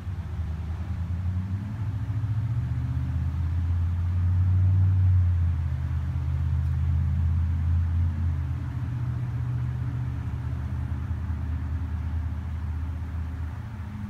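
Low engine rumble that swells to its loudest about five seconds in, then slowly fades toward the end.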